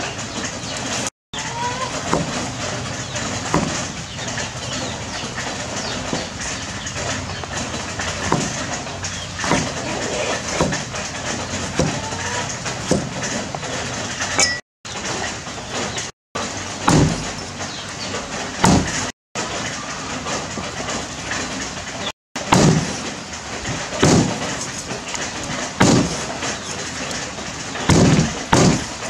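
A vegetable peeler scraping eggplant skin, then a cleaver knocking down onto a wooden chopping board as eggplant is cubed and chicken cut, with sharp chops coming in clusters in the second half. Underneath is a steady outdoor background hiss with a few bird chirps.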